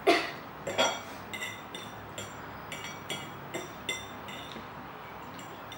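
Metal fork clinking and scraping against a ceramic bowl of noodles: two sharper knocks in the first second, then a string of light clinks for the next few seconds.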